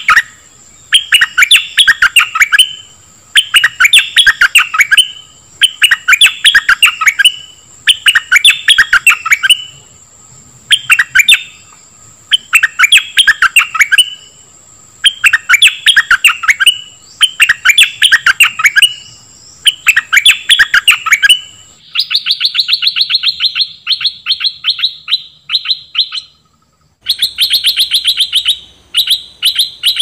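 Stripe-throated bulbul singing: short bursts of rapid chattering notes repeated about every two seconds. About two-thirds of the way through the song changes to a faster, higher run of notes, broken by a brief pause near the end.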